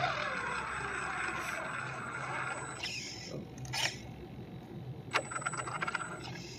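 Radio-controlled truck's motor whining as it drives on asphalt, the pitch sliding down at the start, with a few sharp clicks and ticks later on.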